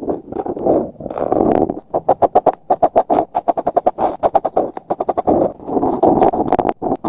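Colouring strokes on paper, a scratchy rubbing that breaks into a quick run of short back-and-forth strokes about two seconds in, then smooths into longer strokes near the end.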